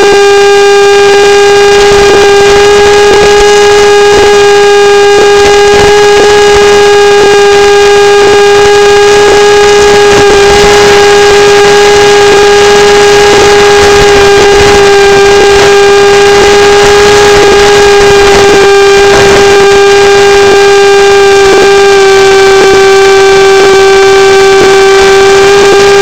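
Electric motor and propeller of a model motor glider running at one steady pitch, a constant high whine with a ladder of overtones, under a haze of wind noise and faint ticks about once a second.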